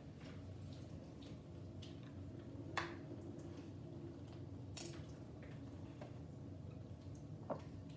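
Quiet handling of an MRE food pouch as its excess water is drained: a few soft clicks and taps, about three seconds in, near five seconds and near the end, over a low hum.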